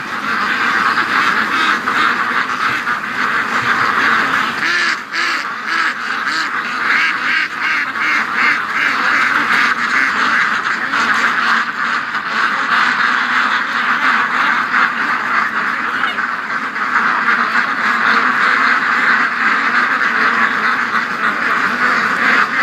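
A large flock of domestic ducks, mostly white Pekins, quacking continuously, many birds calling over one another in a dense, unbroken chorus.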